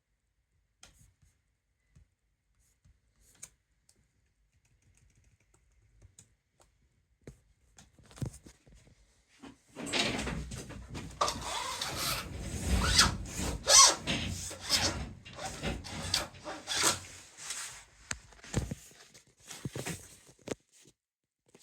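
Packaging being handled by hand: a few faint clicks and taps, then about ten seconds of dense rustling and scraping with many sharp clicks, loudest partway through, thinning to a few taps near the end.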